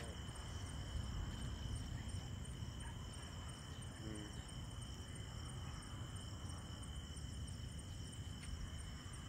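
Insects, likely crickets, chirping steadily in a high, fast-pulsing trill over a low steady rumble.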